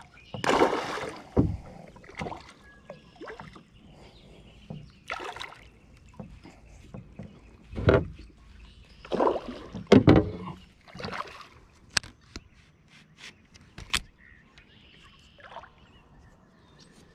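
Irregular knocks and bumps on a plastic kayak hull, with a few sharp clicks from the rod and reel, as a hooked fish is fought from the kayak.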